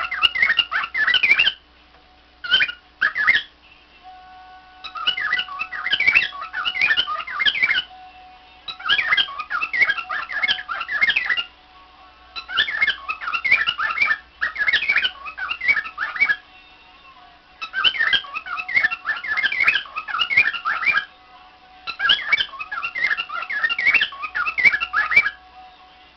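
Cockatiel chattering and warbling: rapid strings of short whistled chirps in bouts of a few seconds, with brief pauses between bouts.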